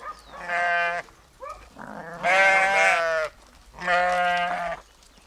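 Sheep bleating: three loud bleats, the middle one the longest and wavering in pitch.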